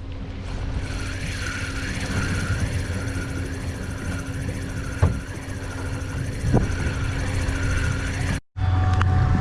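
A motor running steadily, with a low hum and a high whine that warbles about twice a second. Two light knocks come in the second half, and the sound cuts out abruptly near the end.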